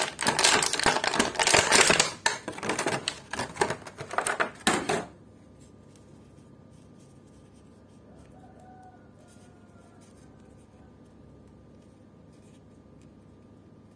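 Thin clear plastic bag crinkling and rustling as an action figure is worked out of it, cutting off suddenly about five seconds in. After that there is only faint room tone with a thin steady hum.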